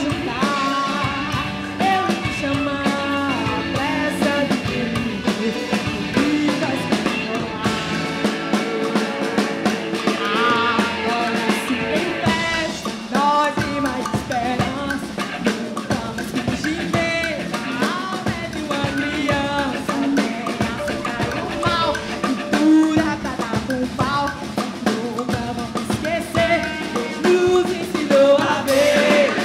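Live band performance: a woman sings lead in Portuguese over drum kit and electric guitar.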